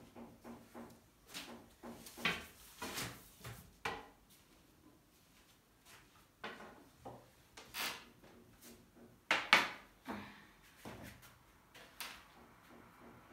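Scattered sharp knocks and clacks of a long wooden rolling pin and other kitchen things being handled on a glass-topped table. There are about a dozen separate hits, the loudest about nine and a half seconds in.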